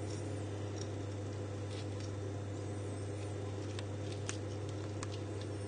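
A small kitchen knife cutting the core out of a soft poached pear half, with a few faint clicks and ticks, over a steady low hum.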